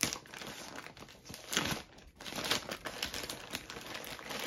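Thin plastic mailer bag crinkling and rustling as it is cut open with scissors and handled, in a run of irregular rustles.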